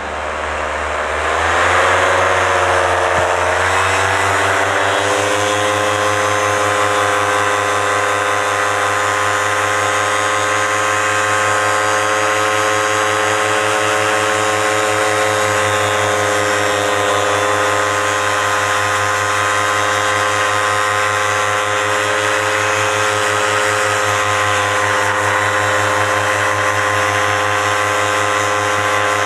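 Paramotor engine and propeller revving up in the first few seconds, then running steadily at a constant high pitch.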